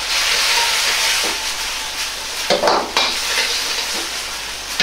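Steel ladle stirring a bubbling, thickening sauce in a wok over a gas flame: a steady sizzling hiss, with the ladle knocking against the wok a few times a little past halfway. The sauce is being stirred fast just after potato-starch slurry went in, so it thickens without lumps.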